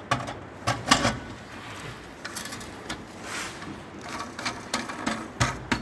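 Low-down cistern siphon being fitted by hand: a handful of sharp knocks and clicks with softer scraping between, the loudest knocks about a second in and near the end.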